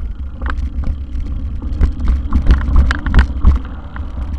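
Mountain bike being ridden fast over a rough dirt trail: wind buffeting the microphone, with frequent clatters and knocks as the bike jolts over bumps, loudest in the second half.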